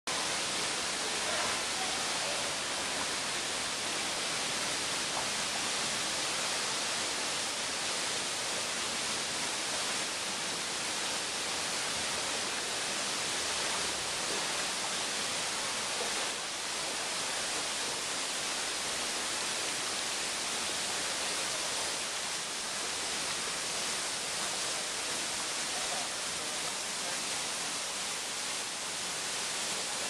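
Kozjak waterfall and the stream below it rushing: a steady, even hiss of falling and running water.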